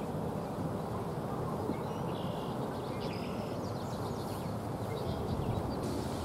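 Outdoor marsh ambience: a steady low rumble of wind on the microphone, with a few faint chirps and a short buzz from birds or insects about two to three seconds in.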